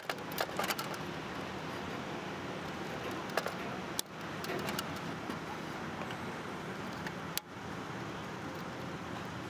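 Light clicks and rattles of wires and lever clamps being worked on the terminal strip of a low voltage landscape lighting transformer, several in the first second and another a few seconds later, over a steady background noise.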